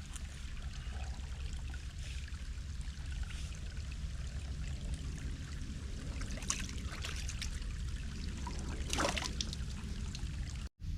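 Water trickling steadily over a low rumble, with a couple of brief louder noises about six and nine seconds in.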